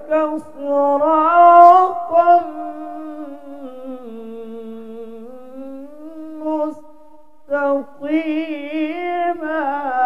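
A man's voice in melodic Quran recitation (tilawah), amplified through a microphone. He sings long drawn-out notes, sinking to a lower held note in the middle, and near the end he sings a quick wavering trill-like ornament.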